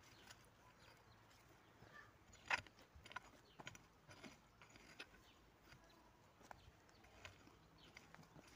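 Small hand hoe scraping and chopping through soil and grass between rows of garlic: a series of faint, irregular scrapes and knocks, the loudest about two and a half seconds in.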